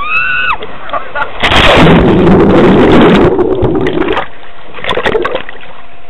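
A brief rising shout from the rider, then a loud splash as they plunge from the waterslide into the landing pool, followed by a long rushing churn of water with the camera underwater, and a few more splashes near the end.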